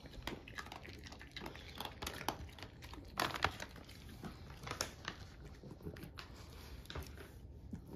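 Soft, irregular crinkling and crackling of treat packaging, with a louder crackle about three and a half seconds in.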